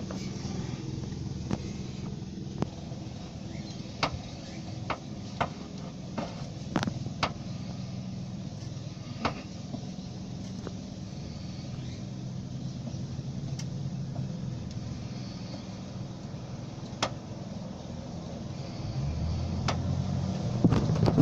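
2004 Ford Territory AWD running with a steady low hum, over which come irregular sharp knocks from the front left, clustered in the first half and sparse later. The knocking is the fault being shown, which the owner links to a control arm problem.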